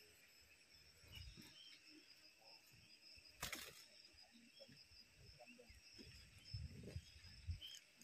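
Quiet outdoor background with a steady faint insect drone, over which bulbul nestlings give a few faint high begging chirps while a parent feeds them. A brief rustle about three and a half seconds in, as the parent lands at the nest, and a few soft low bumps.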